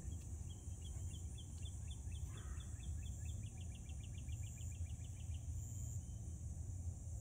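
A bird sings a run of short high notes that speed up into a rapid trill and stop a little after five seconds in. Under it a steady high insect chorus and a low hum carry on throughout.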